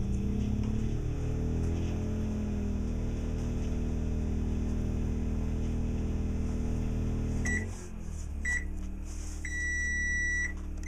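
Microwave oven running under load with a steady hum, drawing its power from an inverter generator. About seven and a half seconds in, the hum drops and the microwave gives two short beeps, then one longer beep.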